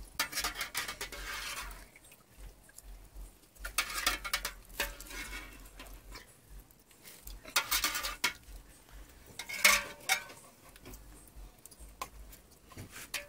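Stainless steel slotted spoon scraping and clinking against a metal pot and a metal bowl as blanched potato halves are scooped out of their water. The clinks and scrapes come unevenly, with the sharpest clink about ten seconds in.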